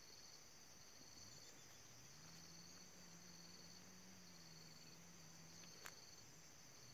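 Faint, steady, high-pitched insect chirring with a fine pulsing. A faint low drone sits under it through the middle, and a single sharp click comes near the end.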